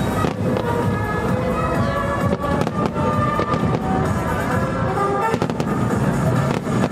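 Aerial fireworks shells bursting with several sharp bangs and crackle, over loud music with sustained tones.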